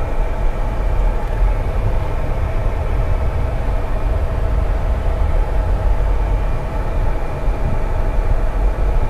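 Jeep Gladiator's air-conditioning blower running steadily at full blast inside the cabin, a loud steady rush of air over a low rumble from the idling engine.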